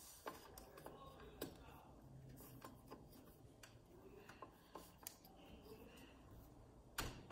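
Faint ticking and scraping as a torque-limiting screwdriver is turned on a retention-frame screw of an AMD Threadripper socket, with a louder click near the end as it reaches its set torque.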